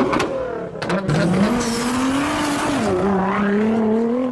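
Sports-car engine sound effect revving: the pitch climbs, dips about three seconds in and climbs again, with a high tyre-squeal hiss in the middle. A few sharp hits come in the first second.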